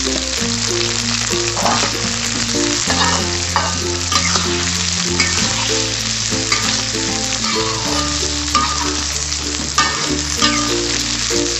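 Green chilies, tomatoes and shrimp paste sizzling in hot oil in a wok, with a metal spatula stirring and scraping through them. Quiet background music of held low notes plays underneath.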